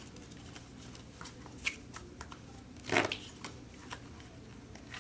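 Faint rustling and light taps of tarot cards being handled on a cloth-covered table, with one louder brushing sound about three seconds in.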